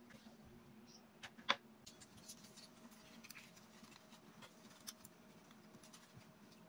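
Faint handling sounds of paper and satin ribbon: scattered light taps and rustles, with one sharper click about a second and a half in, over a faint steady hum.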